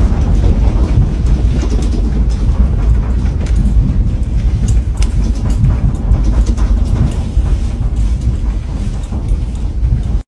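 A strong earthquake shaking a building: a loud, deep, steady rumble with many small clicks and rattles over it.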